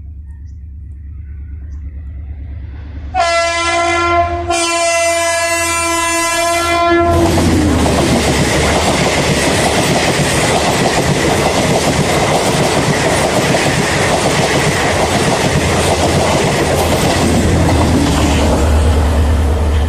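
Indian Railways diesel multiple unit (DEMU) approaching: a low diesel rumble builds, then the horn sounds about three seconds in as a short blast and a longer one of about two and a half seconds. The loud rush of the coaches passing close by follows.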